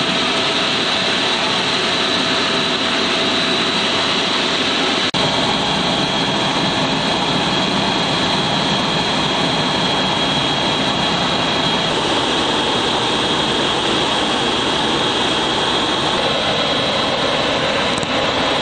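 Helicopter turbine and rotor noise heard from inside the cabin: a steady, loud rush with an even high turbine whine, broken by a short click about five seconds in.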